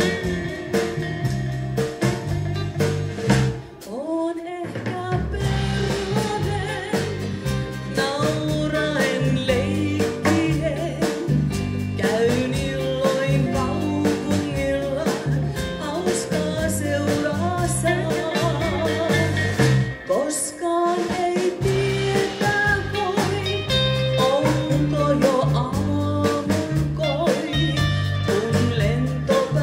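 Live rautalanka-style band music: electric guitars, bass guitar and a drum kit, with a woman singing. The music drops out briefly twice, about 4 seconds in and about two-thirds of the way through.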